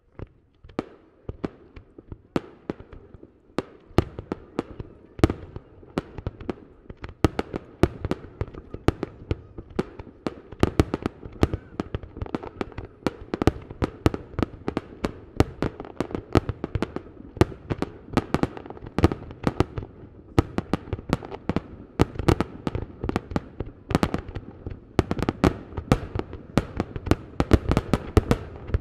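Fireworks display heard from about a kilometre away: aerial shells bursting one after another, the booms sparse at first, then coming several a second from about four seconds in over a steady rumble of overlapping reports.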